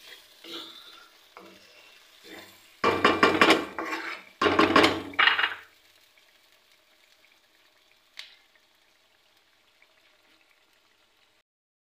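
Wooden spatula stirring and scraping beef karahi around a hot metal karahi, the thick masala sizzling, in two loud spells of about a second each a few seconds in. Then only a faint steady hum, with a single click.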